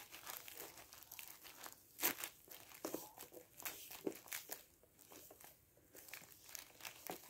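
Faint rubbing and crinkling in irregular short crackles as a white wipe is scrubbed over the plastic lens of a 2007 Mercury Montego gauge cluster lying on bubble wrap.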